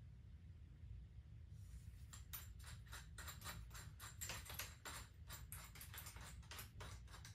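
Faint, rapid, irregular clicking from a hand tool being handled, starting about one and a half seconds in, several clicks a second.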